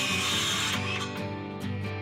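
Background music over a DeWalt circular saw cutting through a treated pine board; the saw's cutting hiss stops suddenly about three-quarters of a second in, leaving the music.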